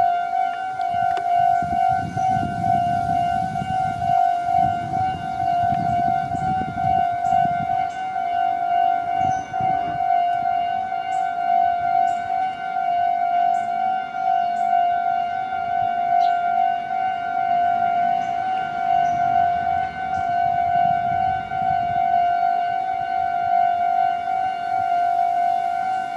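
Japanese level-crossing electronic warning bell ringing the whole time as one high, steady tone with overtones. Low rumbling rises beneath it a few times, around two to seven seconds in and again around nineteen to twenty-two seconds in.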